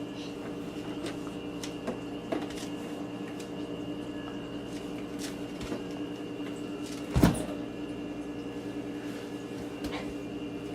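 Light clicks and knocks of things being handled in an open refrigerator, with one much louder knock about seven seconds in, over a steady hum.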